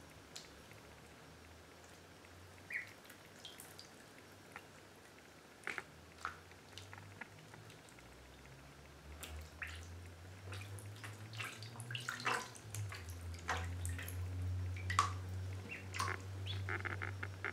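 Indian Runner ducklings paddling in shallow bathtub water: small scattered splashes and drips that grow busier in the second half, with a few short soft peeps. A low steady hum rises underneath about halfway through.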